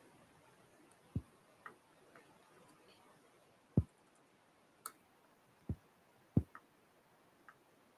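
Scattered soft taps and clicks from a laptop's keys and trackpad being worked, with about four duller knocks among several lighter ticks.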